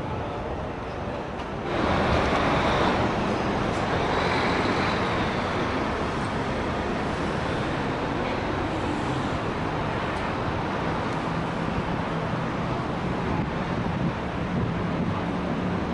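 Steady city road traffic noise from passing cars and buses, stepping louder about two seconds in and then holding even.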